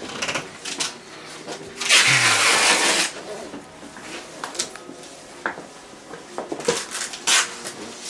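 Handling noises from oil-painting tools: scattered clicks and knocks of brushes and palette knife against the palette and easel, with a loud rustling rub lasting about a second, about two seconds in.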